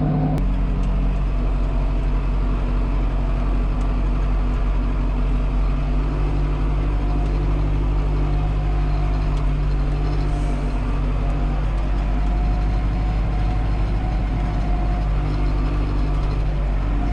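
Tractor engine running steadily under load while pulling a clod-crushing roller over ploughed ground, with a strong low hum.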